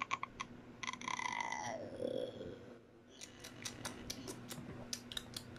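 Light, irregular clicks and taps, thickest in the second half, over a faint steady low hum. About a second in, a child makes a short wordless vocal sound that falls in pitch.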